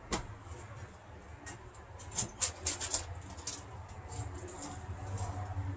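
Handling noise from unpacking: a run of short clicks and crinkly rustles, thickest about two to three seconds in, over a low steady rumble.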